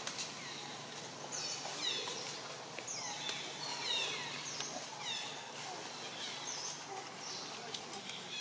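A series of short, high-pitched animal calls, each falling steeply in pitch, repeating about once a second over steady outdoor ambience.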